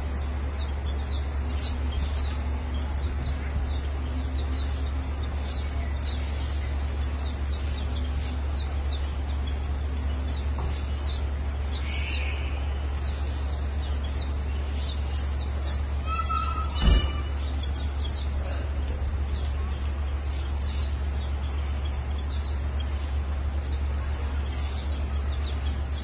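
Small songbirds chirping over and over in short, high, falling notes, several to the second, over a steady low hum. A single sharp knock stands out about two-thirds of the way through.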